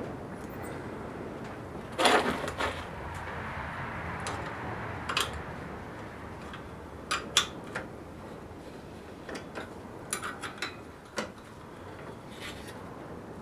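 Metal hand tools clinking and clanking against a saw's blade arbor, with a scatter of sharp knocks. The loudest clank comes about two seconds in, and there are quicker clicks around seven seconds and again around ten to eleven seconds. This fits vise grips and a wrench being worked to tighten the blade nut on the concrete saw.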